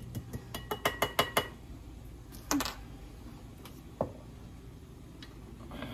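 Kitchen utensil clinking against dishware: a quick run of sharp, ringing clinks in the first second and a half, then a few separate knocks.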